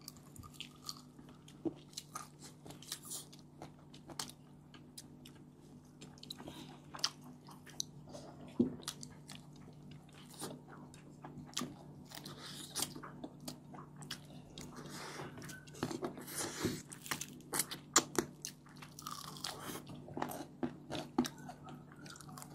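Several people biting into and chewing crispy deep-fried chicken wings close to the microphone: irregular sharp crunches, thickest about two-thirds of the way through, over a faint steady hum.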